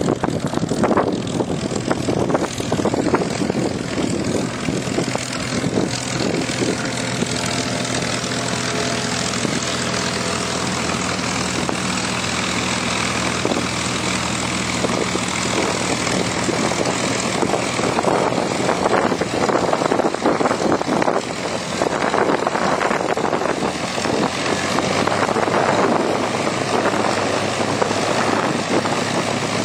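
P-51 Mustang's propeller-driven V12 piston engine running steadily at low power, with wind buffeting the microphone.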